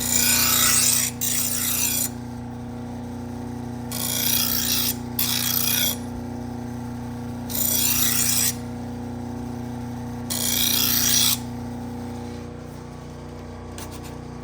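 Six strokes of a Henckels knife blade, each about a second long and coming roughly in pairs, over the steady hum of a running sharpening machine.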